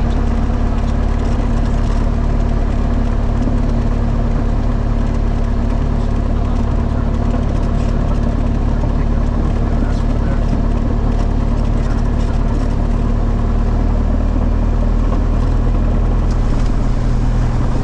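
Single-engine light airplane's piston engine and propeller running steadily at low power while taxiing: a steady low drone, rising slightly near the end.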